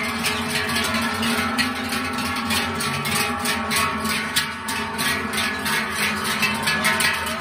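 Many large cowbells on the necks of walking cows clanging continuously, their uneven overlapping strokes and ringing tones swinging with the herd's steps.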